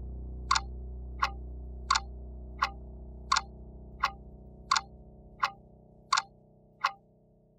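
A clock ticking: single sharp ticks about every 0.7 seconds, over a low steady drone that slowly fades away.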